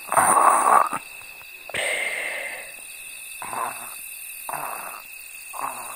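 A person snoring, one loud snore in the first second and fainter breathy snores after it, over a steady chirring of crickets.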